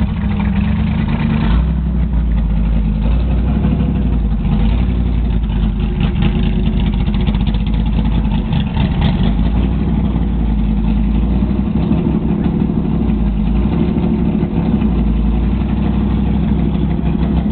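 Chevrolet Corvette C6.R race car's cammed LS7 V8 running at a loud, steady idle through its race exhaust while the car creeps along at walking pace.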